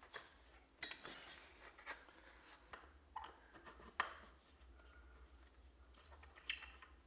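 Quiet room with a scatter of light handling clicks and taps, about seven of them at uneven intervals, the sharpest about four seconds in.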